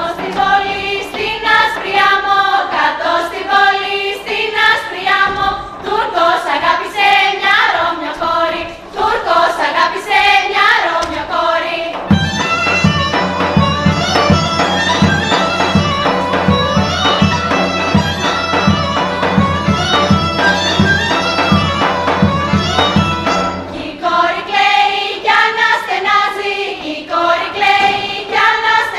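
Live Thracian folk dance music led by a gaida bagpipe, with a daouli drum in the band. About twelve seconds in, a passage with a heavy, steady drum beat takes over for some eleven seconds before the lighter melodic texture returns.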